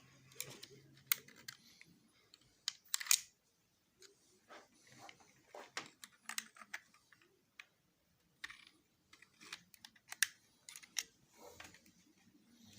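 Scattered light clicks and knocks, a few at a time with short pauses between them, the sharpest about three seconds in.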